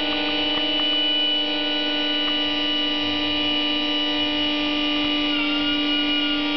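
Live instrumental music: a steady drone of several held tones layered on one another, with a few faint plucked notes; the upper tones shift slightly about five seconds in.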